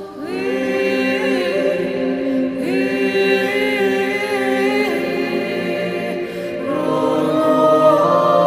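Background music: an a cappella choir singing slow, long-held chords that change about every two seconds.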